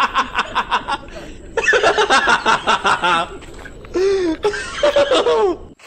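Loud laughter: a fast run of ha-ha-ha pulses, then more bouts of laughing that stop abruptly near the end.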